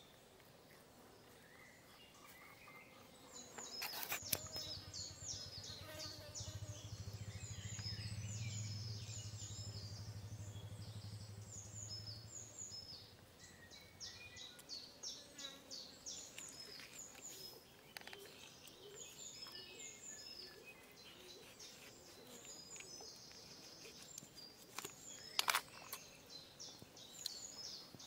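Birds chirping and twittering on and off throughout. About four seconds in, a low steady hum rises, swells and fades away by about fourteen seconds, and a few sharp clicks come near its start and again near the end.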